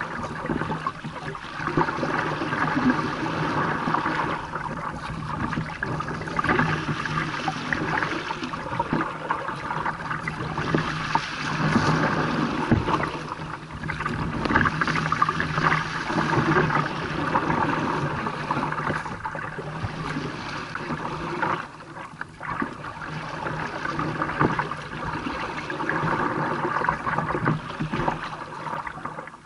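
Choppy water slapping and splashing against a kayak's hull as it is paddled through waves, rising and falling in uneven surges every second or two.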